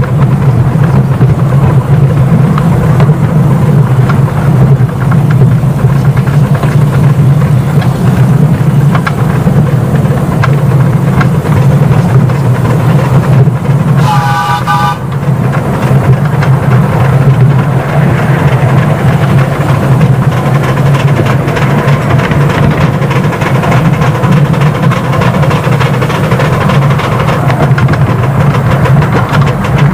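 Miniature steam locomotive running, heard from right behind the engine as a steady loud rumble. About halfway through, its steam whistle gives one short blast of about a second.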